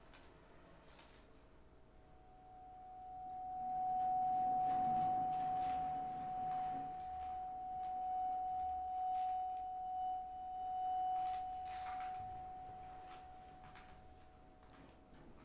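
A bowed vibraphone bar sounding one pure, sustained note: it swells in about two seconds in, wavers gently in loudness, and fades away near the end. Faint clicks and small knocks sound underneath.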